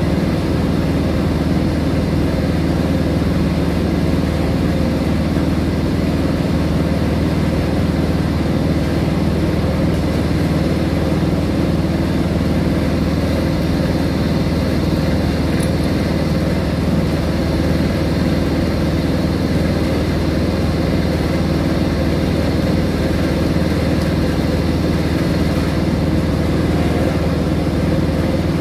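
Steady, loud machinery hum of a water-treatment plant's filter room, droning evenly with no change.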